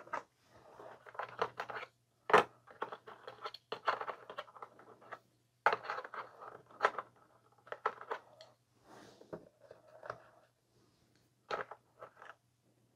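Small plastic camera accessories being handled and worked out of a cardboard box insert: scattered scrapes, rustles and clicks of plastic against card, with sharper clicks about two and a half, six and seven seconds in and again near the end.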